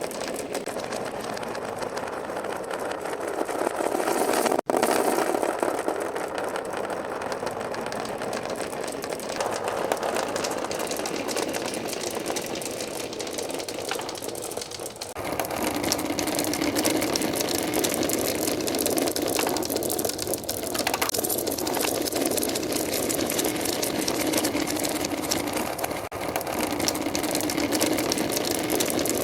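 Many marbles rolling and clattering down wooden HABA marble-run slopes: a continuous dense rattle. It breaks off for an instant about five seconds in and grows louder and fuller about halfway through.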